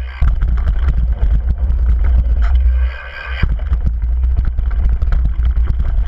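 Mountain bike riding fast downhill on a dirt and gravel trail: wind buffeting the helmet-mounted camera's microphone with a heavy rumble, over dense rattling and crunching of tyres on loose stones and the bike shaking. About three seconds in the rumble eases briefly, then a sharp knock.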